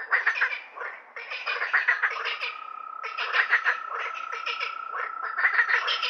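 A chorus of frogs croaking in rapid, overlapping rattling pulses that come in waves, with a steady high-pitched note running underneath from about a second in. The sound cuts in abruptly at the start.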